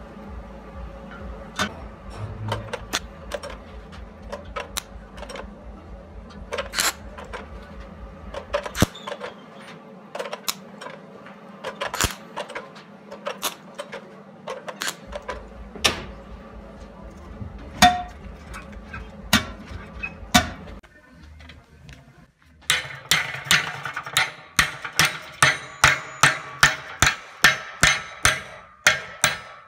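Scattered light metallic clicks and knocks over a low steady hum, then, after a brief lull, hammer blows on a steel strip clamped in a bench vise, about two or three blows a second, bending it.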